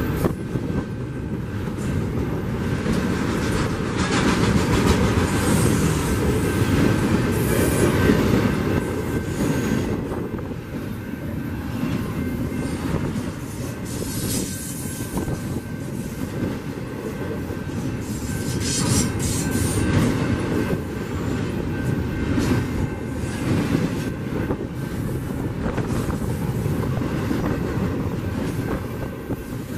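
Double-stack container train's well cars rolling past at speed: a steady heavy rumble and clatter of steel wheels on rail, with brief high wheel squeals now and then.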